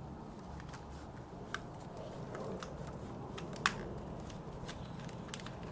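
Light handling of paper notebook inserts: soft rustling with scattered small clicks and taps, the sharpest tick about three and a half seconds in, over a faint steady low hum.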